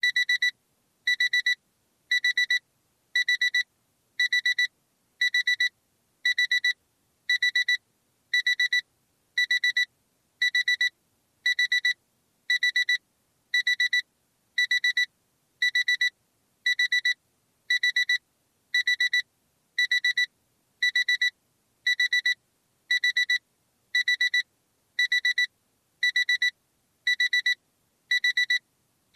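Honda Accord key-in-ignition warning chime: one high beep repeating steadily about once a second, the car's alert that the key has been left in the ignition.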